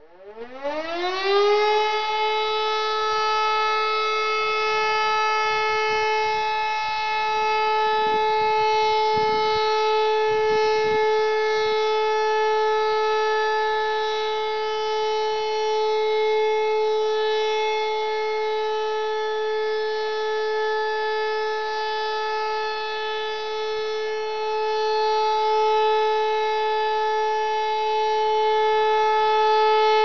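E57 motor siren starting up, its pitch rising over about a second and a half and then holding one steady tone: the continuous all-clear (Entwarnung) signal.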